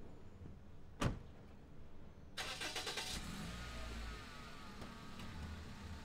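A Toyota sedan's door slams shut about a second in. After that the starter cranks briefly and the engine catches, runs up for a moment and settles to an idle.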